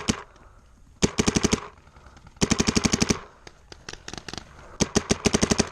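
Paintball marker firing rapid strings of shots: three bursts of about a dozen shots a second, with a few fainter shots between them.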